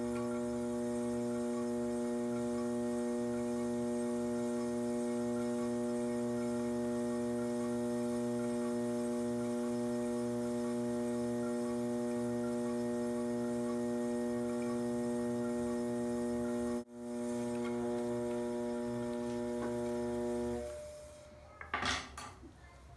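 Electric pottery wheel's motor humming steadily while the wheel spins. There is a brief break about 17 seconds in, and the hum stops near the end as the wheel is switched off, followed by a few light knocks.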